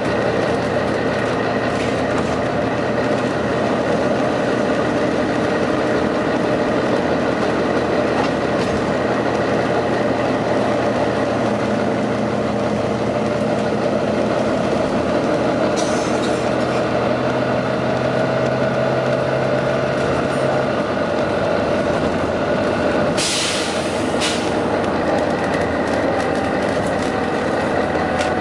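Volvo B9TL bus's six-cylinder diesel engine running steadily, with short bursts of hiss about halfway through and again near the end: the random hissing that the owner suspects is a dodgy turbo. The engine's low hum changes a little past two-thirds of the way.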